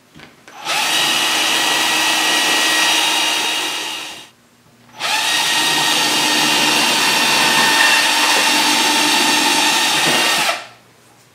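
Cordless drill boring through a wooden branch in two runs, the first about three and a half seconds long and the second about five and a half, with a short pause between.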